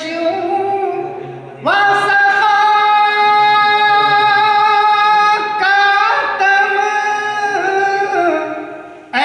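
A man singing solo into a microphone with no instruments, in long drawn-out held notes. He comes in again about two seconds in, holds one long note for several seconds, then sings shorter phrases that tail off near the end.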